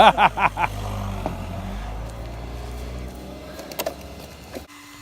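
HPI RS4 Sport RC car with a brushless motor running, a faint high whine over a steady low rumble, cut off abruptly near the end.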